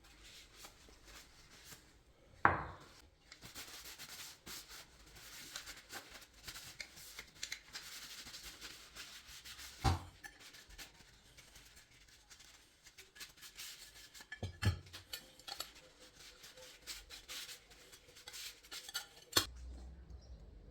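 Metal door-handle hardware clinking and scraping, with four sharp knocks spread through and many small clicks in between.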